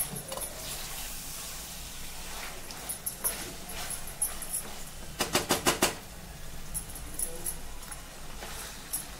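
Mutton frying in oil in a pressure cooker pot, a soft sizzle under a wooden spatula stirring and scraping the meat. A little past the middle comes a quick run of about seven sharp knocks, the spatula against the pot.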